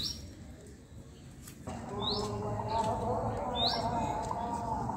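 A small bird chirping three times, each a short note sweeping upward in pitch.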